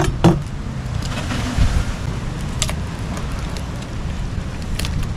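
Steady low wind and surf noise, with a few sharp clicks or knocks, the loudest two right at the start.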